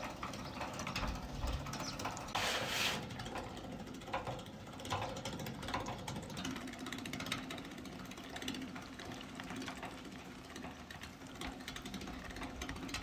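Meat grinder running as raw meat is fed through it: a steady mechanical hum with scattered clicks, and a brief louder rush about two and a half seconds in.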